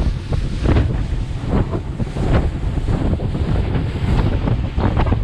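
Strong wind buffeting the microphone over the wash of ocean surf, with irregular short knocks.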